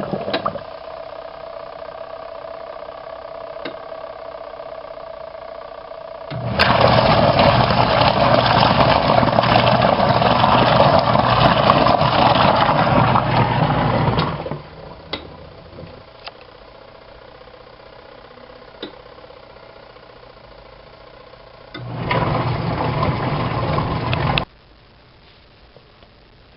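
Ultra-compact twin-tub washing machine running. Its motor hum comes in loud stretches with a rushing noise, one lasting about eight seconds and a shorter one near the end, with a quieter steady whir between them.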